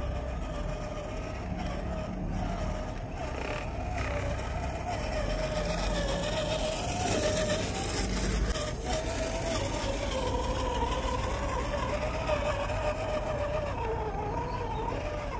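Electric motor and gear drive of a 1/10-scale RC rock crawler whining as it drives over rocky ground, the pitch wandering up and down with the throttle, rising about two-thirds of the way through and dipping near the end. A steady low rumble runs underneath.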